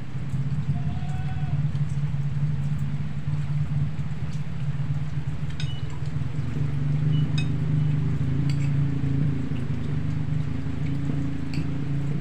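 A steady low mechanical hum, with a few light clinks of a spoon against a plate now and then.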